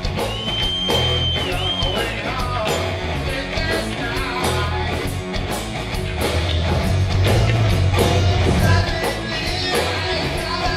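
Heavy metal band playing live: distorted electric guitar, bass and drums with cymbals struck on a steady beat, and a male singer. A high held note bends downward near the start.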